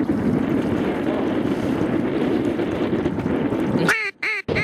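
Steady rushing wind noise buffeting the microphone over open water. About four seconds in, a few short wavering pitched sounds are heard, broken by two brief dropouts.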